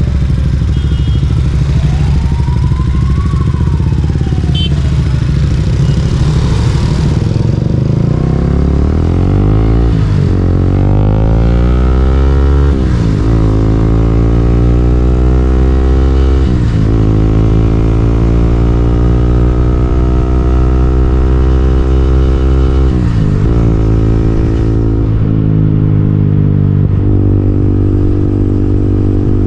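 KTM Duke 200's single-cylinder engine pulling hard through the gears: the revs climb and fall back sharply at four upshifts, then settle into a steady cruise near the end.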